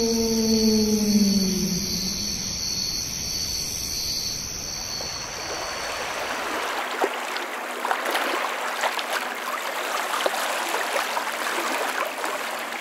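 A held electronic music tone slides down in pitch and fades out over the first few seconds. From about five seconds in, running water trickles and babbles steadily, full of small crackles.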